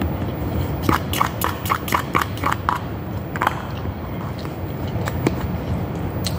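Close-up chewing: a quick run of mouth clicks for about two seconds, starting about a second in. After it comes a few single clicks of a plastic spoon in a plastic bowl, over a steady low background hum.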